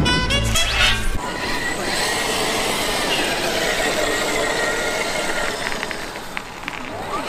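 Background music cuts off about a second in. It gives way to a Traxxas X-Maxx RC monster truck driving: the high whine of its VXL-8s brushless electric motor rising and falling over a rush of tire and ground noise.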